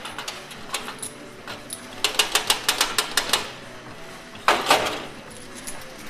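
Coins clicking and clattering in a coin pusher machine: a quick run of sharp metallic clicks about two seconds in, then a louder, denser clatter of coins about four and a half seconds in.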